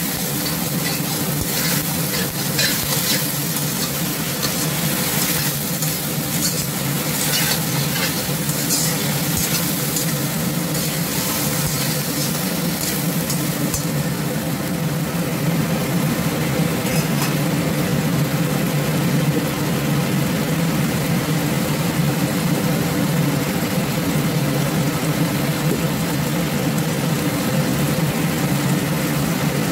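Chicken, pork and okra sizzling in a wok while a wok spatula stirs and scrapes them. The scraping strokes come thick in the first half and thin out after about the middle. A steady low hum runs underneath.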